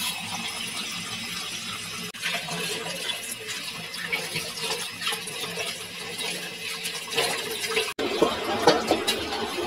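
Tap water running into a plastic colander of chopped hechi shak greens while a hand stirs and rubs the leaves to rinse them. Near the end a few knocks and rattles as the colander is handled.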